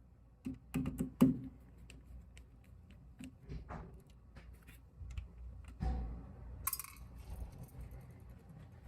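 Scattered light clicks and clinks of small hard parts being handled as an automatic urinal flush valve is taken apart, with a dull knock about six seconds in and a short burst of hiss just after.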